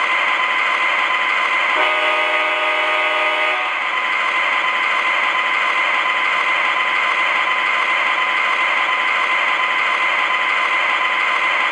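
MTH O gauge CSX ES44AC model diesel's Proto-Sound 3.0 system playing a steady diesel running sound with a high whine through its onboard speaker, with one horn blast of about two seconds near two seconds in.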